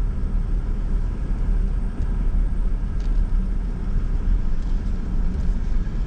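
A car driving along: a steady low rumble of engine and tyre noise.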